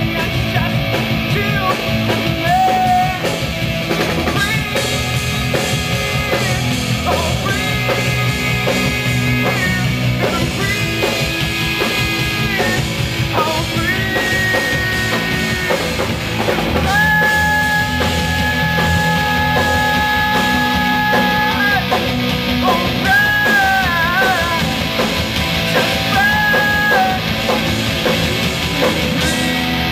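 Live rock band playing through a PA: a male singer over electric guitars and drums, with a long held sung note about halfway through.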